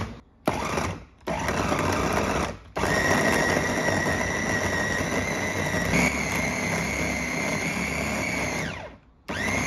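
Electric food chopper mincing raw meat in a glass bowl: two short pulses, then a steady run of about six seconds with a high motor whine that steps up slightly partway through, before it stops and a last brief pulse winds down near the end.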